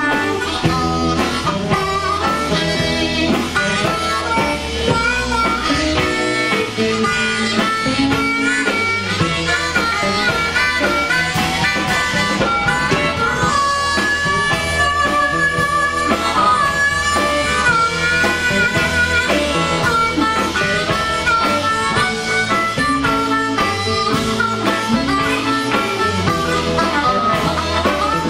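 Blues harmonica solo played cupped against a microphone, wailing and bending notes over an electric blues band of guitars and drums, with one long held note about halfway through.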